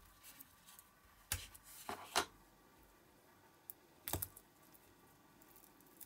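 Handling noise from a silicone mould being taken apart and its pieces handled: a few sharp clicks and knocks, the loudest about two seconds in and another about four seconds in.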